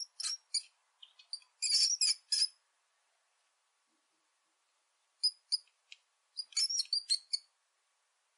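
Small rodent's high-pitched squeaks, coming in quick clusters of several at a time, with a silent gap of about two seconds midway.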